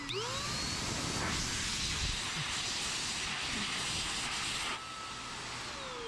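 Adam's handheld mini air cannon, a 1200-watt electric forced-air car dryer, blowing through its crevice nozzle: its motor whine rises as it spins up, under a steady rush of air. About five seconds in, the air rush drops and the whine falls away as the motor winds down.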